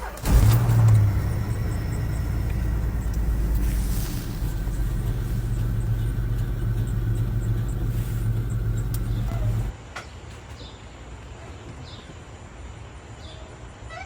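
A car engine running steadily, louder for its first second, then cutting off abruptly about ten seconds in.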